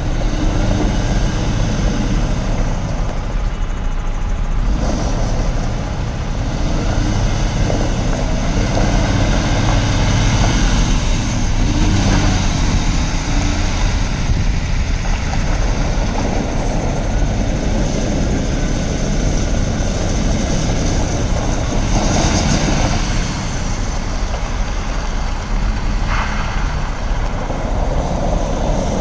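MAN TGS 33.400 6x4 tractor unit's diesel engine running steadily as the truck drives slowly past and away.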